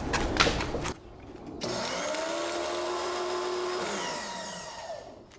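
Sun Joe SPX3000 electric pressure washer spraying with no nozzle tip fitted. The spray noise breaks off about a second in. The motor then comes back on with a hissing spray: its whine rises, holds steady, and falls away toward the end.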